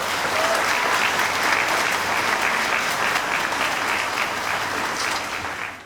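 An audience in a hall applauding steadily, a clapping crowd at the close of an assembly.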